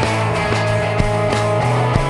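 Background rock music with a steady beat, about three drum hits a second, under held guitar-like tones.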